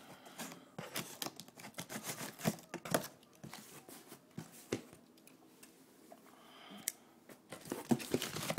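A cardboard motherboard box being worked open by hand: irregular scraping, tearing and rustling of cardboard flaps and packing, with many sharp clicks. It is busiest for the first few seconds and again near the end, quieter in between.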